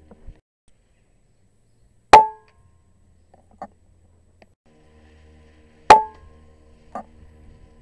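Two airgun shots about four seconds apart, each a sharp crack with a brief metallic ring. About a second after each shot comes a fainter click.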